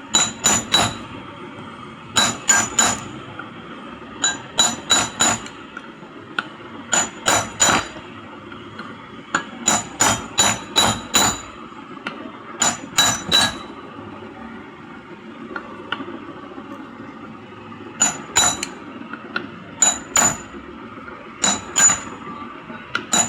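Hammer tapping on the metal body of a pedestal fan motor, sharp ringing strikes in quick groups of two to four, as the motor is knocked evenly into its fitting on both sides.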